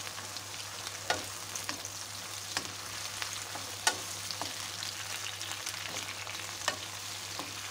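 Sliced onions sizzling in olive oil in a frying pan while a wooden spoon stirs and turns them. The spoon knocks against the pan several times, the loudest about four seconds in.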